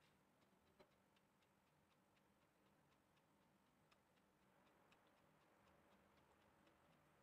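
Near silence, with faint scattered ticks several times a second.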